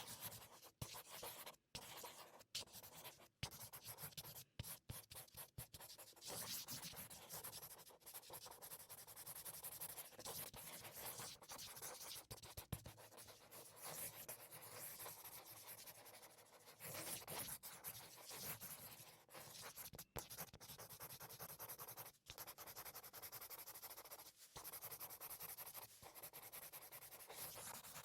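Marker pen writing: a run of scratchy strokes of the felt tip on a surface, broken by brief pauses that come often in the first few seconds and less often later.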